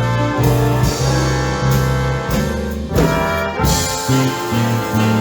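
Big band playing swing, with the brass section of trumpets and trombones holding chords over a low bass line.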